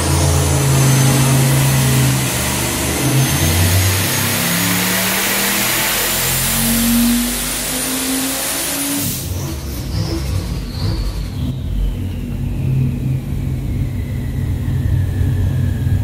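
Single-turbo 427 cubic-inch LS V8 on an engine dyno, revving up under boost to about 6,100 rpm with a rising whine from its 76 mm Bullseye turbo. About nine seconds in the engine comes off the throttle and drops back to a rough low running sound while the turbo whine winds down.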